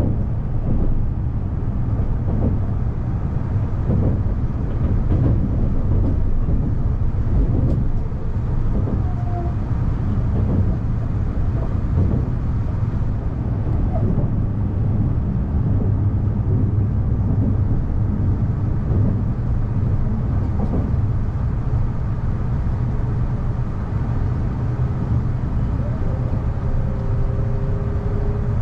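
Narita Express train running, heard from inside the carriage: a steady low rumble with faint irregular knocks from the wheels and track. Two faint steady tones come in near the end.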